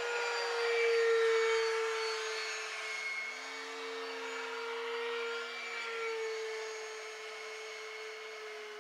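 Electric ducted-fan motor of a Durafly Vampire RC jet model whining steadily in flight. It is loudest about a second in on a close pass, then fades slowly as the model flies away.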